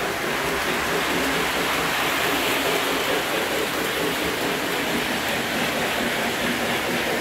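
Several Lionel model trains running at once around a layout, giving a steady whirring rumble of motors and wheels on metal track with no breaks.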